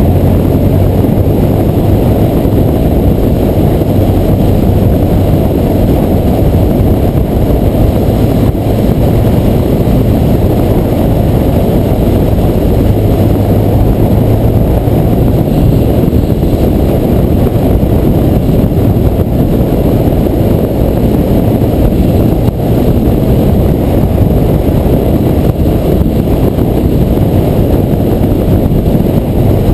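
Wind rushing over the microphone of a motorcycle at steady road speed, a dense low rumble, with the steady drone of a BMW R1200R's boxer twin engine underneath.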